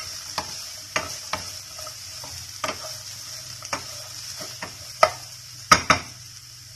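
Vegetables and sweet corn frying in oil in a non-stick pan, stirred with a wooden spatula: a steady sizzle with irregular knocks of the spatula against the pan, the loudest three coming close together near the end.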